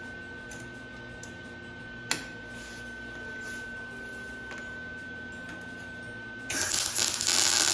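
A short burst of welding on sheet-metal and wire seat-frame parts: a loud crackle of about two seconds near the end, after a single sharp click a couple of seconds in, with a steady high tone underneath until the crackle starts.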